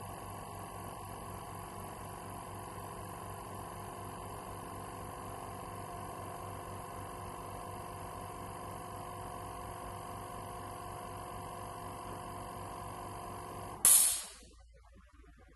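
Orex low-noise oil-free air compressor running with a steady motor hum. About 14 seconds in it is switched off at its pressure switch: a short, loud hiss of released air, then the hum stops.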